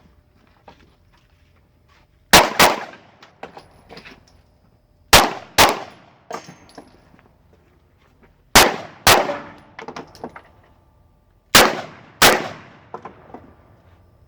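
Gunshots fired in pairs: four double shots about three seconds apart, the two shots of each pair under a second apart, each crack ringing out and dying away, with fainter clicks between.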